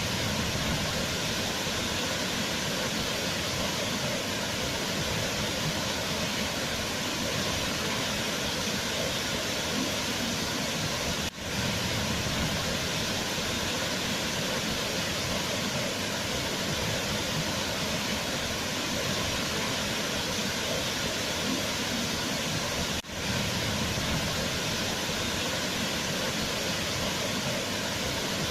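Waterfall rushing with a steady, even roar of water, broken twice by a brief dip in level about eleven and a half seconds apart.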